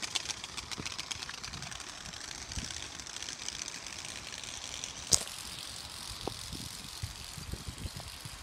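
Playing cards taped to a 16-inch Mongoose Mighty Goose BMX flapping against the spokes as it is ridden, rigged to sound like a motorbike. The sound starts as a rapid clicking and blends into a steady high buzz. There is a single sharp click about five seconds in.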